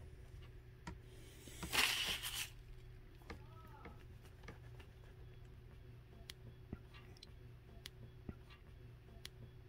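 Faint clicks and squishes of a flex cable being twisted and pushed in and out of a stub shaft packed with JB-Weld epoxy. About two seconds in there is one short hissing squish, the trapped air bubble popping out through the epoxy, and a brief faint squeak follows soon after.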